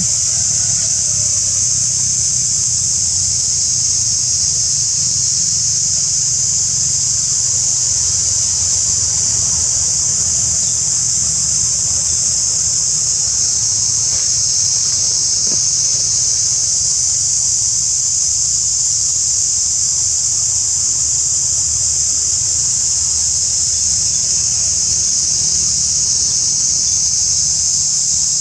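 Insect chorus: a loud, steady, high-pitched shrill drone without a break, over a steady low rumble.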